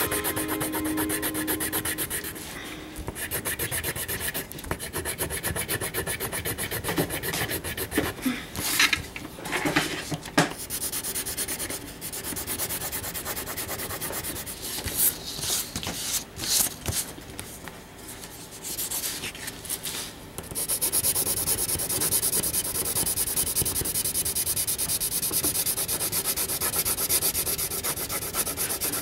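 Pencil rubbed rapidly back and forth on paper, shading in a dark area in a steady run of quick strokes, with a few harder, louder strokes around a third of the way in and again past the middle.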